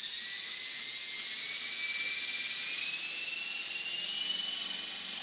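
Madhawk 300 electric RC helicopter's motor and rotor head spooling up while held down, a high whine that climbs slowly in pitch as it comes up to speed. It is a test run to check for head vibration after a flybar replacement.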